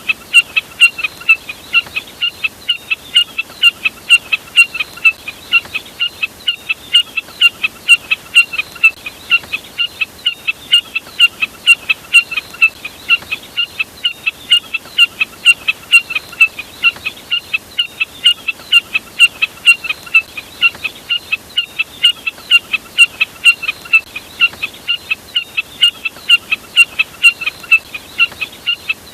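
A burcet's lure call, which the uploader labels the common jack snipe's call: a short, sharp note repeated steadily at about three a second without a break.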